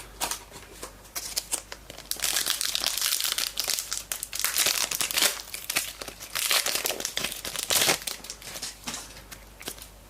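Foil trading card pack wrapper being torn open and crinkled by hand, a dense crackling rustle that runs for several seconds and dies down near the end.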